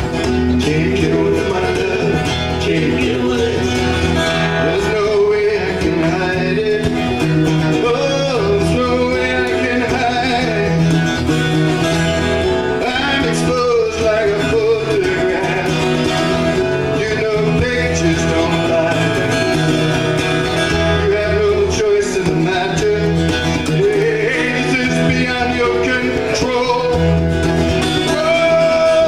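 Live acoustic folk song: two guitars strummed and picked, with a man singing.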